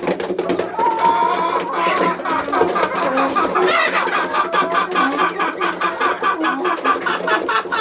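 A flock of chickens clucking and calling, many birds overlapping. From about four seconds in a fast, even run of short clucks, about five a second, comes to the fore.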